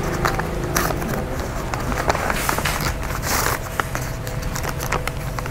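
Plastic packaging and paper crinkling and rustling as they are handled, with scattered clicks and a denser rustle around the middle.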